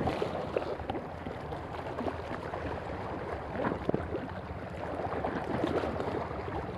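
Small sea waves washing and splashing against shoreline rocks, with wind buffeting the microphone.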